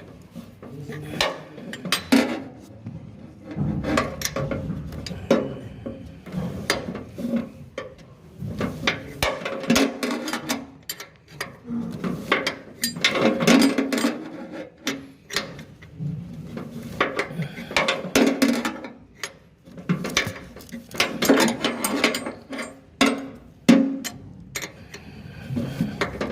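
Irregular clicking, clinking and knocking of hand tools on metal during manual repair work, some strikes close together and others spaced by short pauses.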